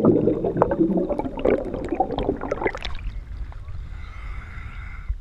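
Scuba exhaust bubbles rushing and crackling past an underwater camera housing, heard from underwater. About three seconds in the sound suddenly drops away as the camera breaks the surface, leaving only a faint steady background above water.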